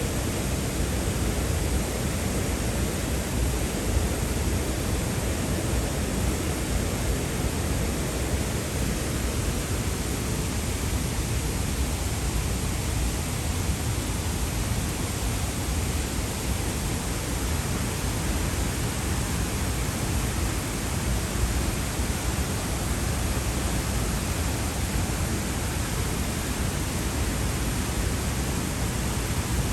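Waterfall: a steady roar of falling water, even and unbroken, heaviest in the low end.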